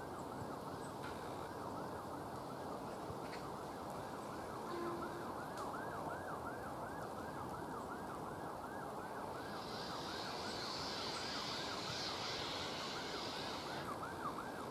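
LMS Black Five 4-6-0 steam locomotive moving slowly, with a high squeal that rises and falls about three times a second. From about ten seconds in until near the end, a loud hiss of steam joins it.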